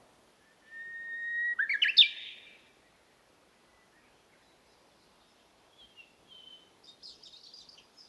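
Birds singing. One song is a long held whistle that ends in a quick, loud run of notes about two seconds in. Softer short notes and a high twittering follow near the end.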